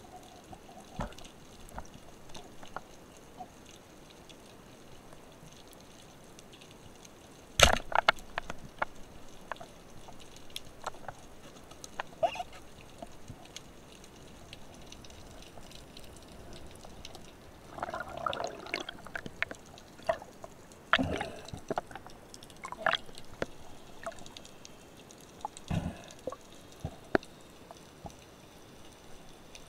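Underwater sound on a spearfishing dive: a steady sea hiss with scattered clicks and knocks. One sharp, loud clack comes about eight seconds in, and bursts of bubbling gurgle come around eighteen and twenty-one seconds.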